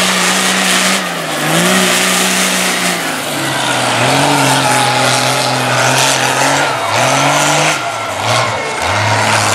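Lifted off-road trucks' engines running hard across a dirt course, the engine note climbing and dropping back several times as the throttle is worked, over a steady roar.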